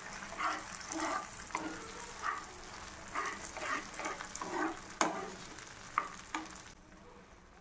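Spatula stirring and scraping thick tomato chutney round a nonstick frying pan, in soft strokes about twice a second over a light sizzle of hot oil, with a few sharper knocks of the spatula on the pan. It stops just before the end.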